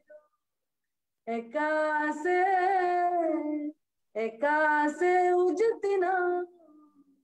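A woman singing an Oraon folk song in the Kurukh language, unaccompanied: two long phrases on held notes after a short pause about a second in.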